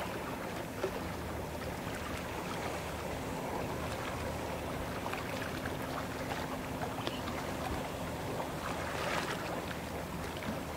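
Boat engine running steadily with a low hum under a continuous wash of rushing, splashing water.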